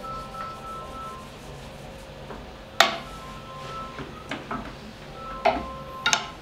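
Yufka dough being rolled out with a long thin wooden rolling pin (oklava) on a wooden board: a continuous rubbing, broken by a sharp wooden knock near the middle and two more near the end.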